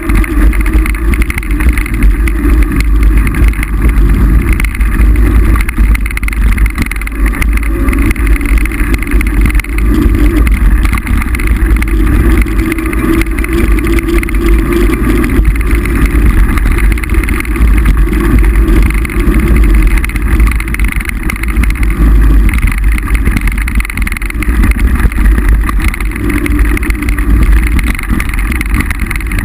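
Loud, steady wind rumble buffeting the microphone of a camera carried on a moving mountain bike.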